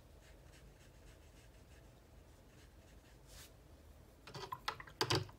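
A watercolour brush is dipped and rinsed in a jar of water. It makes a quick run of sharp clicks and taps against the jar near the end, after faint brush strokes on paper.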